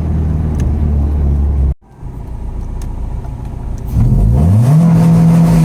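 Honda H22 four-cylinder in an H2B Civic running steadily, then a sudden brief cut in the sound just under two seconds in. From about four seconds in the engine revs up quickly and holds at one steady pitch, held against a rev limit set around 5,000 rpm.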